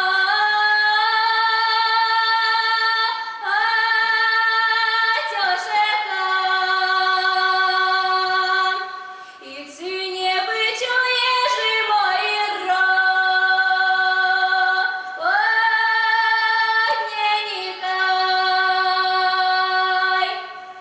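A young woman singing a Russian calendar folk song solo and unaccompanied, in long held notes that step between pitches, with a short breath break near the middle.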